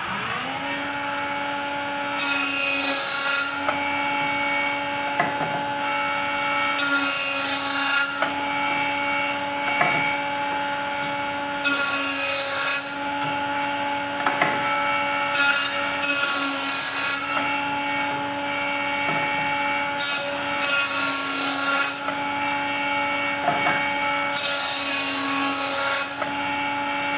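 Woodworking jointer's motor and cutterhead spinning up and then running with a steady hum, while a board edge is fed across the knives about six times, each pass a burst of cutting noise lasting a second or so. The repeated passes are jointing a concave edge flat: a cutting sound that runs unbroken along the whole pass is the sign of a flat, straight edge.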